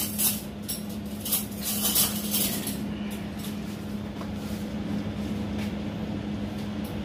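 A steady low hum with a few light clinks and knocks in the first couple of seconds, like dishes being handled.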